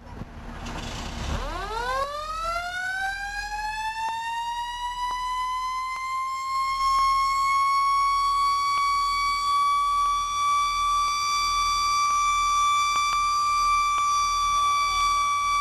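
Fire engine's mechanical siren winding up, rising in pitch over the first few seconds, then holding one steady, high wail.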